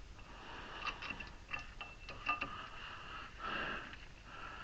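A few faint, light clicks and taps of brake parts and tools being handled, over a faint steady high-pitched hum.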